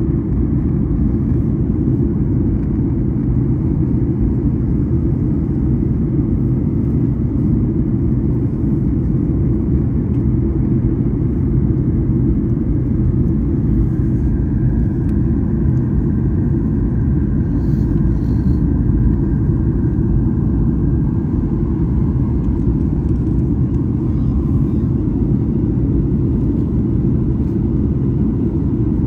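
Steady low rumble of airliner cabin noise, jet engines and rushing airflow heard from inside the passenger cabin. A faint higher hum joins it about halfway through.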